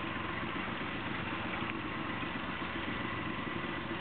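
A boat's engine idling with a steady hum.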